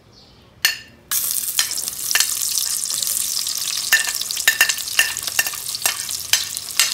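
Sliced onions going into hot cooking oil in an aluminium pot: after a brief clink, a loud sizzle starts suddenly about a second in and keeps going, with a metal spoon clicking and scraping against the pot as the onions are sautéed.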